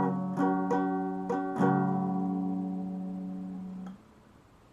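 Acoustic guitar strumming a few quick chords, then one chord left to ring out and fade. The chord is cut off about four seconds in, leaving near silence.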